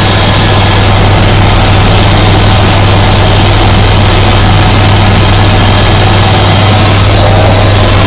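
Helicopter engine and rotors in flight, heard from inside the cabin: a loud, unbroken drone with a strong low hum.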